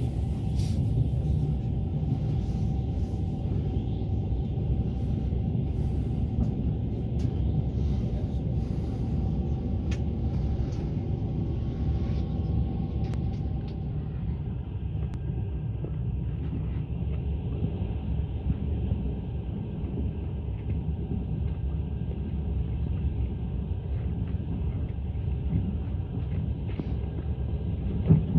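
Passenger train No. 61 running at speed, heard from aboard the carriage as a steady low rumble with a few faint clicks in the first half.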